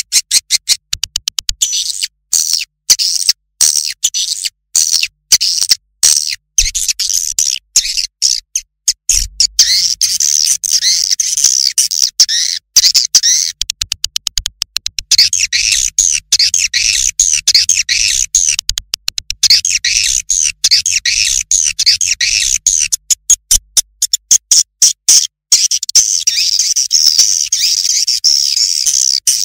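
Recorded edible-nest swiftlet calls played as a lure: dense, rapid high chirping and twittering, chopped by many brief silences, with a faint low hum underneath through the middle.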